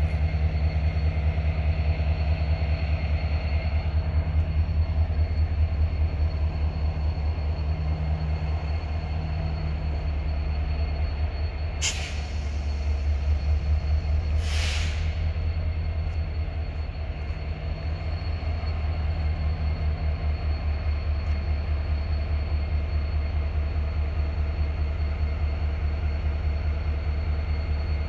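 GEC-Alsthom 6FE electric locomotive running slowly on a turntable, a steady low hum with a fast even pulse. Two short hisses of air about twelve and fourteen and a half seconds in.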